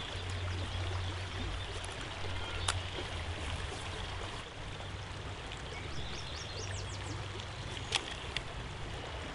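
Steady rushing outdoor background noise, like running water. A few short high bird chirps come about two-thirds of the way through, and there are a couple of faint clicks.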